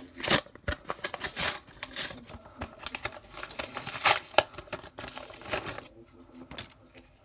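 Packaging of a pack of trading cards crinkling and tearing as it is opened by hand. The sound comes in irregular crackling bursts that thin out near the end.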